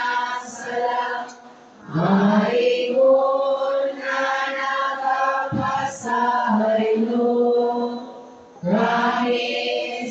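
Liturgical chant sung through a microphone and church sound system, a voice holding long steady notes in phrases. There are short breaks between phrases about two seconds in and about eight seconds in.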